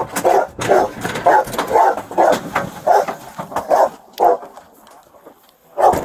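A dog barking repeatedly, about two or three barks a second, then stopping about four seconds in before two more barks near the end.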